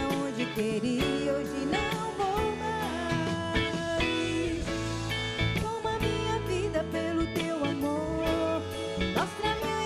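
A woman singing a melody with a live band: keyboard, acoustic guitar and electric guitar.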